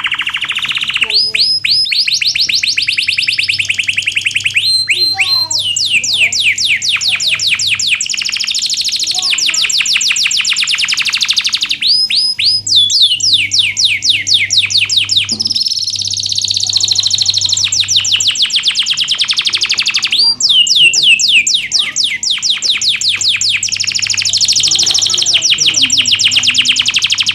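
Domestic canary singing a long, loud song of rapid trills: rolls of quickly repeated high notes, each lasting a few seconds before switching to a new trill, with short breaks between phrases. A faint steady hum lies underneath.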